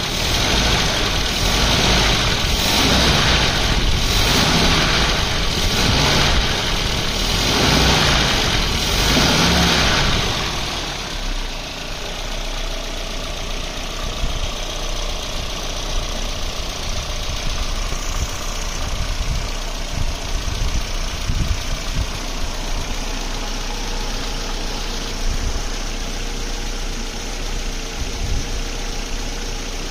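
Mercedes-Benz M102 2.0-litre eight-valve four-cylinder engine, converted to electronic fuel injection, running on open exhaust downpipes with no silencer. For about the first ten seconds it is revved up and down several times, then it settles to a steady idle.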